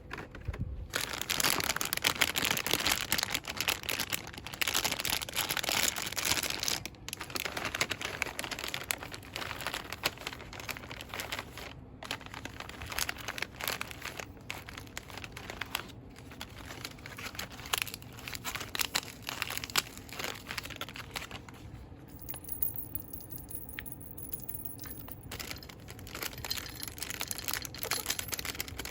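Fast, vigorous crinkling and rustling of cosmetics packaging handled close to the microphone, dense and continuous. It eases off for a few seconds near the end.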